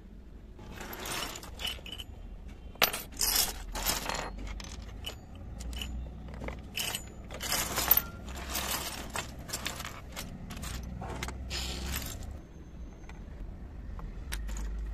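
Miniature steel and ceramic kitchen utensils clinking and rattling against each other as they are picked up from a pile and set down, a long run of small clatters that thins out near the end to a single click.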